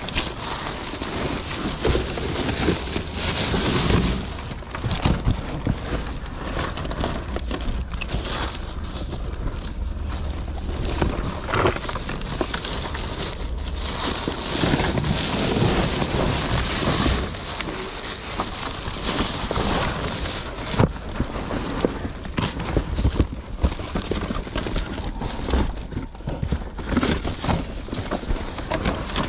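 Rummaging through dumpster contents: paper, sketchbooks, cardboard and plastic packaging rustling and shifting close to the microphone, with scattered knocks and bumps throughout.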